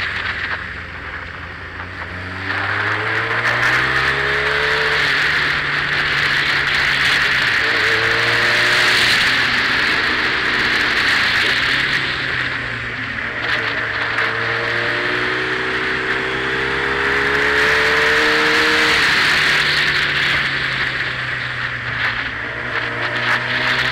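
Motorcycle engine heard from the bike. Its revs climb and fall back several times as the throttle is opened and rolled off through bends, over a steady rush of wind and road noise. It is quieter and lower for the first couple of seconds, then climbs.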